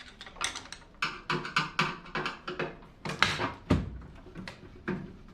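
Irregular knocks and metallic clatter of hand tools working on a microwave oven being taken apart by hand, with a loud knock about three seconds in.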